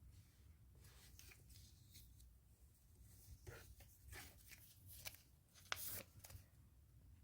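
Faint rustling and light clicks of items and packaging being handled, in short irregular strokes, the strongest near the end, over a low steady hum.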